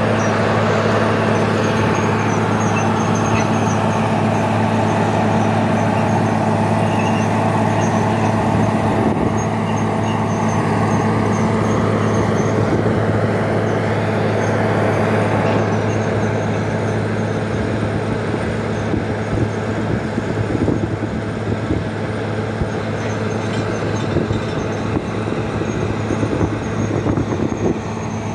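Truck-mounted borehole drilling rig running: a steady diesel engine drone with a deep hum under a noisy rush. It drops a little in level and grows less even about halfway through.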